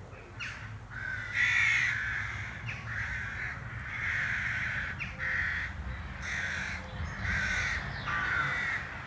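A crow cawing over and over, harsh calls about once a second, over a faint low steady rumble.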